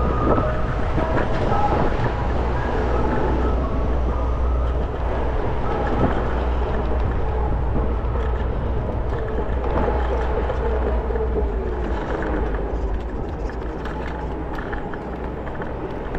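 Segway Ninebot Max electric scooter rolling along a city sidewalk: a steady low rumble of tyres on concrete, under general street noise.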